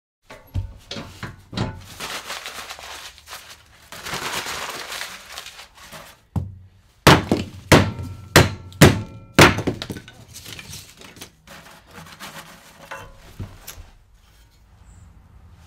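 Kindling sticks being handled and laid into a small steel wood-burning stove: wooden knocks and clatters with a rustle about four seconds in. The loudest part is a run of about six sharp knocks between seven and nine and a half seconds in, some with a brief ring.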